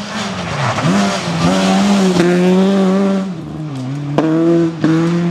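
Opel Astra GSI rally car's 2.0-litre four-cylinder engine passing at high revs on a gravel stage. The revs drop and pick up sharply about a second in, hold high, dip briefly near four seconds, and there are two sharp cracks in the last second and a half.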